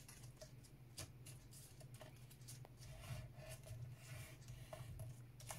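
Faint rubbing and light taps of a metal ruler pressed and drawn along a folded card frame to flatten the crease, with soft paper handling.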